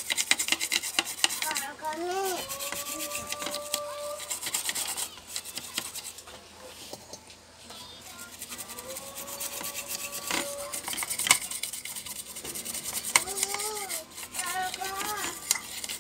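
A toothbrush scrubbing back and forth over a graphics card's circuit board in quick rasping strokes. The strokes ease off for a couple of seconds midway, then pick up again.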